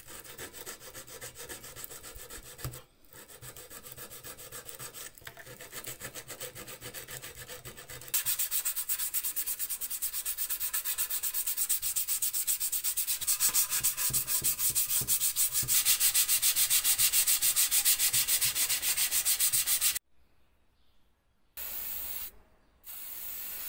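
Sandpaper rubbed by hand in quick, even back-and-forth strokes over the metal post box's painted and filled surface, softer at first and louder from about a third of the way in. It stops abruptly, and near the end come two short hisses.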